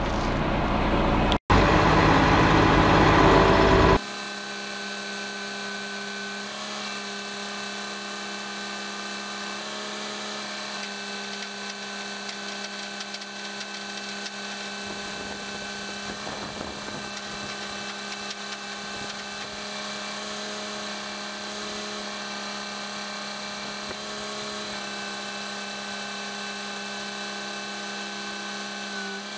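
A loud rushing noise for the first few seconds that cuts off abruptly, then the steady drone of a crane's engine and hydraulic pump running while the boom lowers a load. The pitch of the drone shifts slightly a few times.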